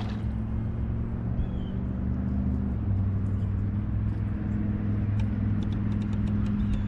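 Steady electric hum of a bass boat's trolling motor, its pitch shifting about three seconds in as the speed changes. Faint ticking of the fishing reel being cranked comes near the end.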